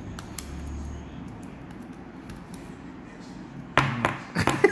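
Trading card being handled into a plastic sleeve and hard case: soft plastic clicks and rustles over a low room hum, then a sudden louder burst of handling noise near the end.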